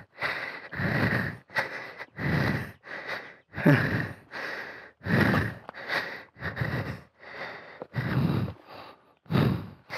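A man panting heavily and close to the microphone, out of breath, about one and a half breaths a second.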